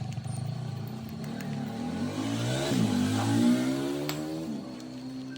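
Electric grinder motor running with a rough, snoring growl that pulses rapidly at first; its pitch rises and falls through the middle before settling to a steadier tone near the end.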